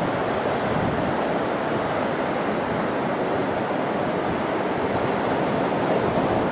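Ocean surf breaking steadily on a beach, with wind blowing across the microphone.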